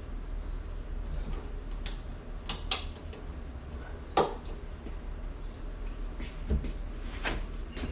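Grille mounting clips being handled and pushed into place on a car's hood grille: a scattering of separate sharp clicks and knocks, the loudest about four seconds in.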